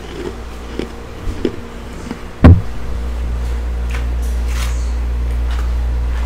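Handling noise from a desktop microphone: light taps and rustles, then a loud thump about two and a half seconds in as it is set down on a hard surface, followed by a steady low hum.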